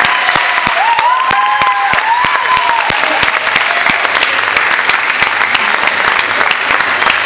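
Theatre audience applauding, with voices calling out over the clapping during the first couple of seconds.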